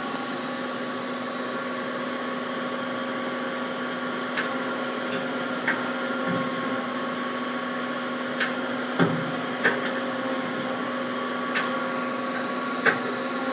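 Powered-up Daewoo Puma 15 CNC lathe humming steadily at idle, a held machine drone with several steady tones, broken by a few scattered sharp clicks.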